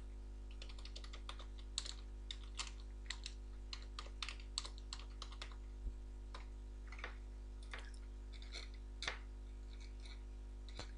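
Computer keyboard typing: faint, irregularly spaced key clicks in short runs, over a steady low hum.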